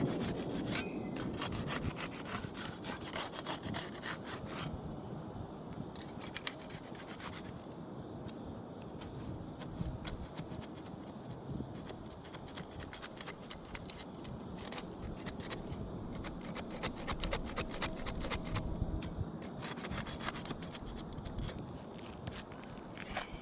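A flat hand tool scraping and rubbing under asphalt roof shingles, working them loose to break the seal for a shingle repair. It makes a dense, irregular run of short scrapes and clicks.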